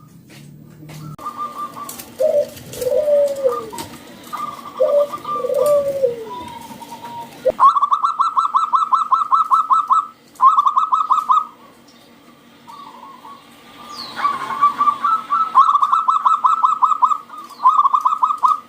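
Zebra doves (perkutut) calling: bursts of rapid, staccato cooing, about eight pulses a second, separated by short pauses, with a few lower, drawn-out arching coos in the first seconds.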